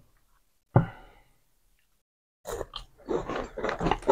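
A person chewing a bite of chocolate bar close to the microphone: a dense run of short, irregular mouth and chewing noises starting about two and a half seconds in, after one short sharp sound about a second in.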